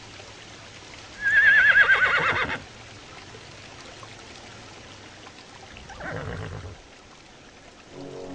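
Horse whinnying: one loud, quavering call lasting about a second and a half that falls in pitch, then a shorter, quieter whinny about six seconds in.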